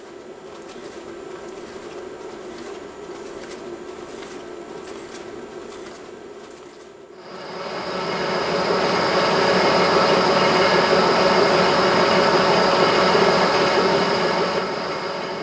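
Metal lathe spinning up about seven seconds in and then running steadily, a dense mechanical gear rumble with a steady high whine over it. Before it starts there is only a quieter steady hum with a few light clicks.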